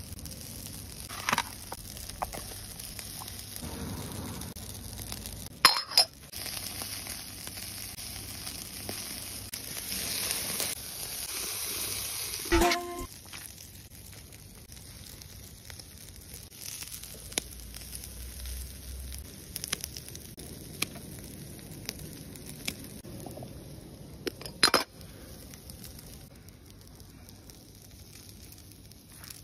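Liquid sizzling and bubbling in an aluminium mess tin over a charcoal grill, with a few sharp metal clinks, one ringing briefly. The sizzling drops away about halfway through, leaving quieter handling sounds as food is added by hand.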